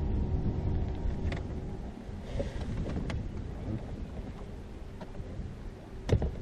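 Wind rumbling on the microphone aboard a bass boat, with a few light knocks on the boat, the loudest one near the end.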